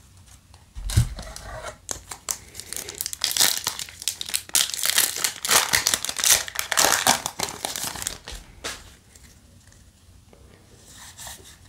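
Foil wrapper of a Yu-Gi-Oh! booster pack being torn open by hand: a dense crinkling and tearing crackle for about six seconds, preceded by a low bump about a second in and followed by quieter handling.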